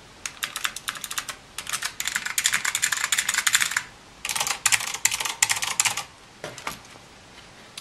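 Fast typing on Alps-switch mechanical keyboards, White Alps on a plastic plate and Blue Alps, compared for sound. Two quick runs of keystrokes come first, about three and a half seconds and then under two seconds long, followed by a couple of single key presses.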